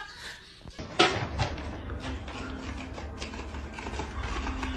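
Plastic dry-food bag rustling and scraping as a cat drags it across carpet in its mouth, after a sharp knock about a second in.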